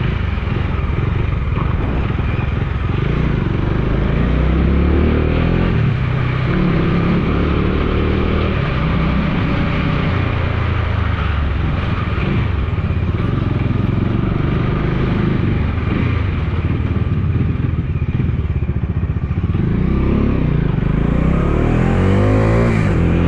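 Bajaj Dominar 250's single-cylinder engine running on the road, its note shifting up and down with throttle and gears, and rising near the end.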